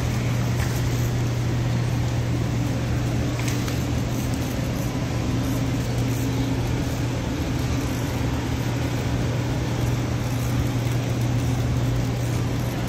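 Steady low hum with an even background noise of a large warehouse store's building machinery, unchanging throughout.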